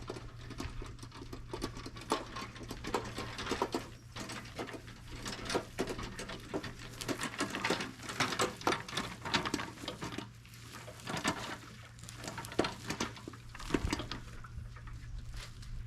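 Irregular clicks, knocks and rustles of a garden hose being handled and hooked up to a pressure washer, over a steady low hum.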